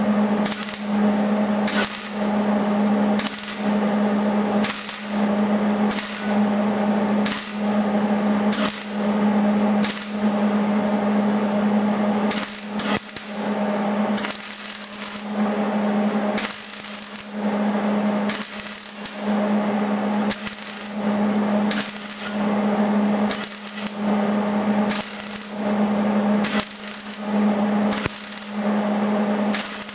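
Welding arc crackling in short bursts, roughly one a second, over a steady hum: tack or stitch welding.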